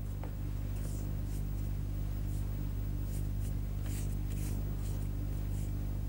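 Faint soft swishes of a Chinese painting brush stroking across paper, a few irregular strokes, over a steady low hum.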